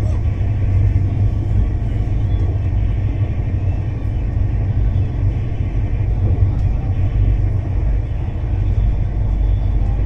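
Rajdhani Express train running at high speed, heard from on board: a steady, loud low rumble of wheels on rails with an even noisy haze above it.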